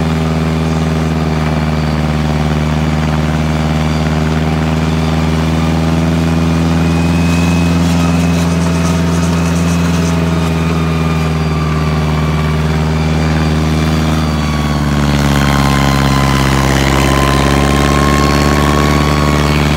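John Deere 1010 crawler track loader's engine running steadily. About fifteen seconds in, its note drops lower and stays there.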